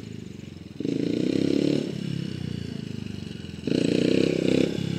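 Dirt bike engine revving in two bursts of throttle, about a second in and again near four seconds in, dropping back to a lower, steadier pitch between them. The second burst comes as the front wheel lifts into a wheelie.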